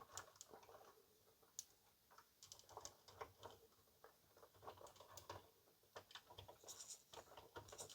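Faint, scattered clicks and taps of hard plastic toy parts being handled, as a seat belt is fitted around an action figure in the tower seat of an LJN Mutant Fistpounder toy vehicle.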